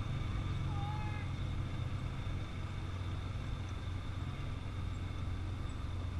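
Side-by-side UTVs driving slowly past in a line, their engines running steadily with a low, even hum.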